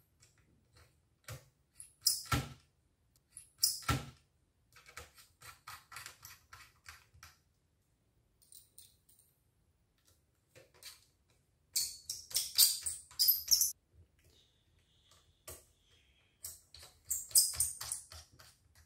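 Small clicks and taps from handling screws, a screwdriver and laptop parts in an open laptop chassis. There are two sharper knocks in the first few seconds. Past the middle and again near the end come two loud runs of fast metallic rattling clicks.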